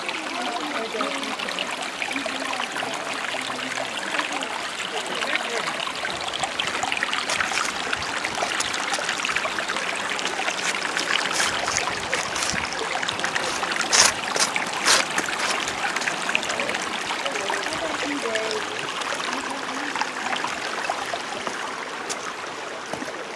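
Creek water flowing steadily, with two sharp clicks about two-thirds of the way through.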